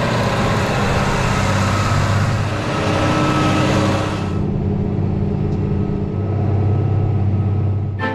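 Deutz-Fahr 6175 TTV tractor's turbocharged six-cylinder diesel running steadily under load while pulling a chisel plow through the soil. About four seconds in, the high hiss drops away sharply, leaving mainly the low engine note.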